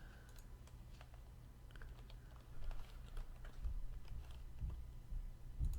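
Faint computer keyboard typing and clicking, scattered and irregular, with a few soft low thumps in the second half over a steady low hum.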